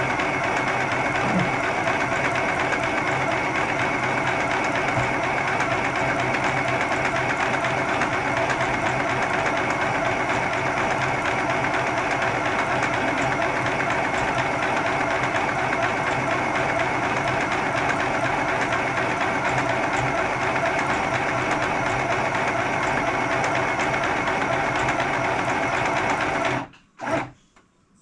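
Electric household sewing machine running steadily, stitching through fabric, then stopping abruptly near the end, followed by one short sound.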